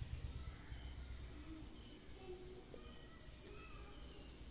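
Crickets chirping: a steady high-pitched trill that swells in regular pulses, a little more than once a second.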